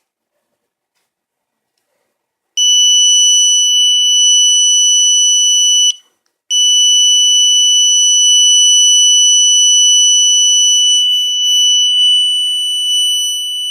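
Alarm buzzer of a simple homemade alarm circuit sounding a loud, steady, high-pitched tone. It comes on a couple of seconds in, breaks off briefly about six seconds in, and then sounds again without a break.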